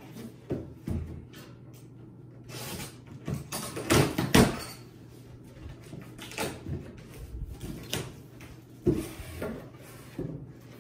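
Packaging being handled while gifts are opened: irregular knocks and crinkling paper or plastic, loudest about four seconds in, with more scattered bumps toward the end.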